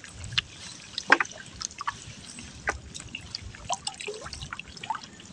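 River water dripping and splashing off a wet trammel net as it is hauled in by hand: scattered, irregular drips and small splats.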